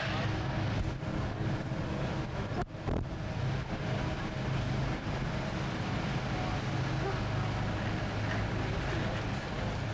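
Steady low drone of a running vehicle with road noise, briefly dropping out a little under three seconds in.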